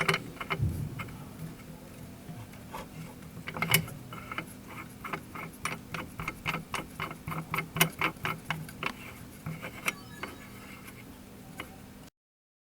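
Quick metallic clicks, about three to four a second, as a lock nut is screwed onto a stationary-bike crank arm and tightened down against the pulley, over a faint steady hum. The sound cuts off abruptly near the end.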